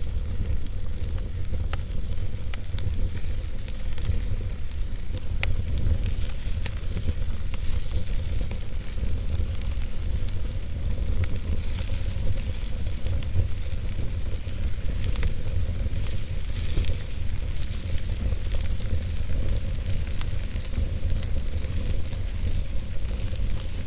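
Fireplace fire burning, with scattered crackles and pops over a steady low rumble.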